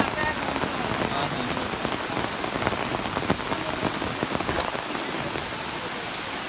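Steady rain falling on coffee shrubs and wet foliage: an even hiss of drops, with a few sharper individual drop hits about three seconds in.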